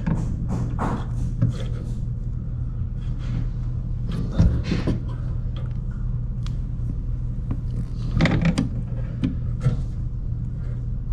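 Pliers clicking and scraping against a dishwasher's water-line fitting at the inlet valve as it is snugged a quarter turn past finger tight, with a few sharp knocks, over a steady low hum.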